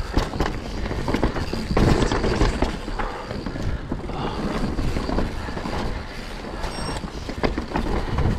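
Mountain bike descending fast on a dirt trail: steady tyre noise with frequent knocks and rattles from the bike over roots, rocks and wooden slats.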